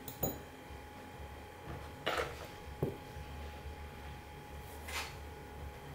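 Quiet handling noise: four soft knocks and scuffs as a smartphone is set down and moved about on a silicone repair mat, over a faint steady hum.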